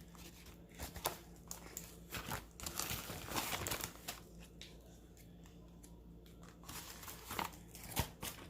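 Packaging of a mailed package crinkling and tearing as it is opened by hand, busiest in the first half, then a few scattered rustles and sharper clicks.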